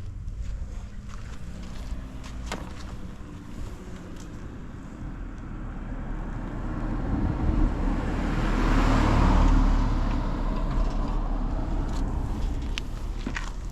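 Motor vehicle engine noise under a steady low rumble, swelling gradually to its loudest about two-thirds of the way through and then fading, with a few light clicks.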